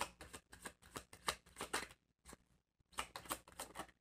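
A deck of tarot cards being shuffled between the hands: a quick run of light card flicks that pauses briefly around two seconds in, then starts again.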